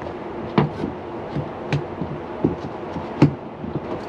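Hard acrylic panel knocking and clicking against an RV window frame as it is tried in a groove it is a little too thick for, several separate knocks with the loudest near the end, over a steady low hum.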